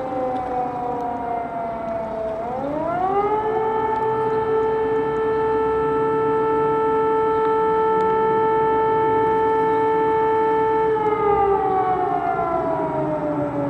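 A siren sounding a wail. Its pitch falls, then rises sharply about two and a half seconds in, holds one steady tone for about seven seconds, and falls again from about eleven seconds in.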